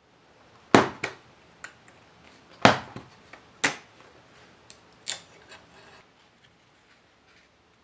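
Hobby knife cutting the small holding tabs of a laser-cut part from a thin wooden kit sheet, each tab parting with a sharp click: about five loud clicks with fainter ticks between. After about six seconds there is soft rustling as the freed part is handled.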